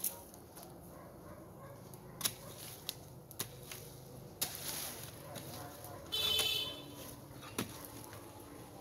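A hoe blade striking dry, hard earth: several sharp knocks at uneven intervals. About six seconds in, a brief high-pitched buzzing tone is the loudest sound.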